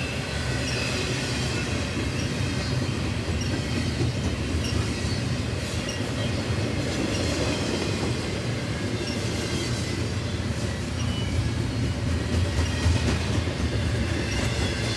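Cars of an intermodal freight train rolling slowly past on the rails: a steady low rumble of wheels on track with light clacking and faint intermittent wheel squeal.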